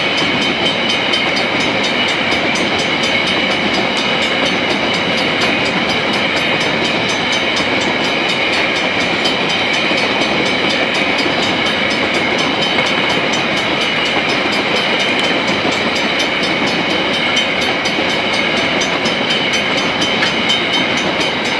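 Coal train wagons rolling steadily over a level crossing: a continuous rumble of steel wheels on rail with a high metallic ring over it.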